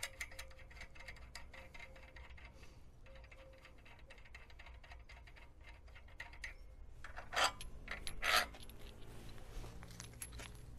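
Metal parts and a hand tool being worked on a hoe attachment's steel bracket: a run of rapid light metallic clicks, then two louder scraping clanks about seven and eight seconds in.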